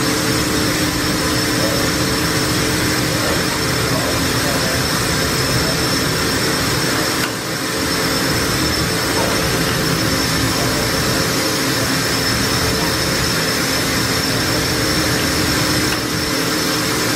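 Okuma Millac 800VH machining center spindle running at a steady speed with a small drill in its tool holder: a steady high whine and lower hum over a loud rushing noise, dipping briefly about seven seconds in.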